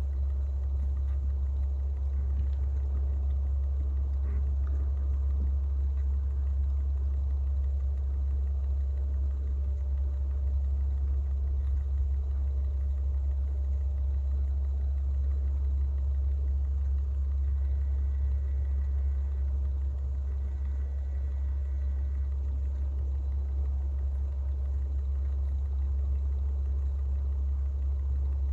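Steady, unchanging low hum with no speech, like a motor running. Twice, about two-thirds of the way through, a faint high two-note tone sounds for a second or two.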